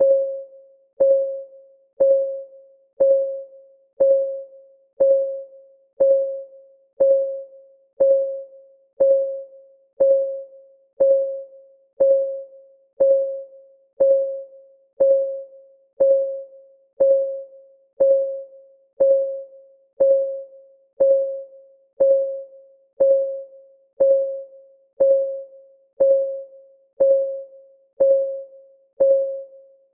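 Countdown timer's clock-ticking sound effect: one short, pitched tick a second, each alike and dying away quickly, in a steady even beat.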